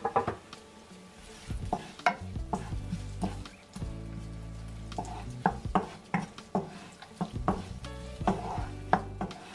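A wooden spatula stirs sliced onion and ginger frying in oil in a nonstick pan: a string of scraping strokes against the pan over a sizzle.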